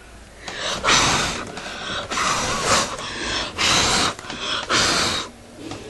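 A person breathing heavily close to the microphone: four long, hissy breaths about a second apart.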